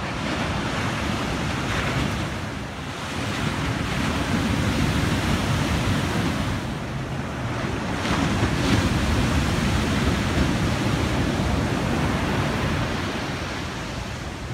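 Waist-high shore-break waves breaking and washing up the sand: a steady rush of surf that swells a few seconds in and eases off near the end.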